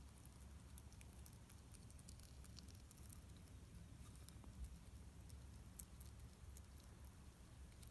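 Hedgehog crunching dry hedgehog kibble: faint, irregular clicks of chewing over a low, steady hum.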